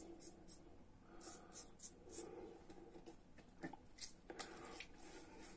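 Goodfellas Italiko safety razor with a Feather blade scraping through lathered stubble in short, faint, scratchy strokes, several quick ones in the first two seconds and a few more later.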